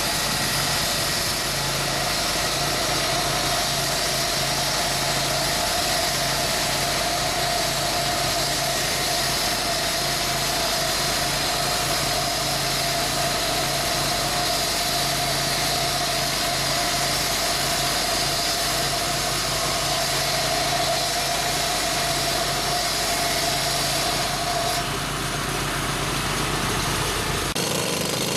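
An engine running steadily at idle, with a constant hum and a pulsing low throb; the sound shifts near the end.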